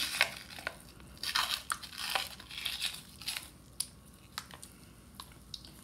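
Membrane being pulled off a rack of raw baby back ribs and handled: a few short crinkly, rustling scrapes in the first couple of seconds, then only a few light clicks.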